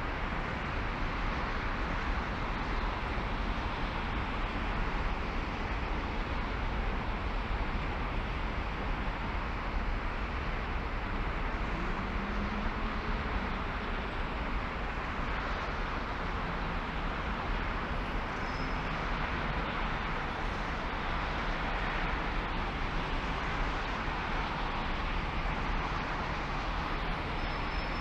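A car driving, with steady road and tyre noise that is heaviest in the low end.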